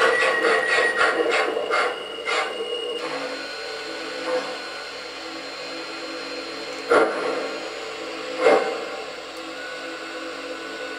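MTH model 4-6-0 steam locomotive chuffing, the chuffs slowing and ending about three seconds in as it comes to a stop. It is followed by a quieter steady sound with a soft repeating pulse, broken twice by short sharp sounds a second and a half apart.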